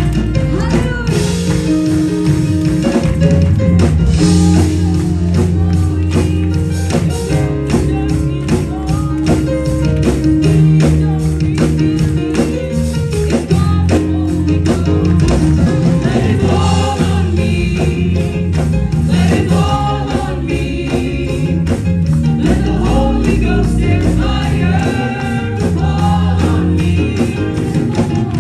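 Live gospel worship music: a church band with several singers and instruments, including bass and drums keeping a steady beat.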